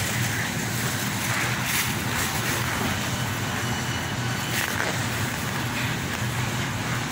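Steady indoor background noise of a supermarket: an even hiss with a low hum under it, with no distinct events.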